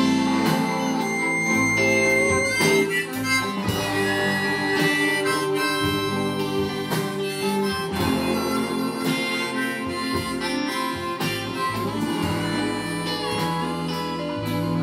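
Harmonica played in a neck rack over a strummed acoustic guitar, with a bowed fiddle: an instrumental passage of a live acoustic blues band.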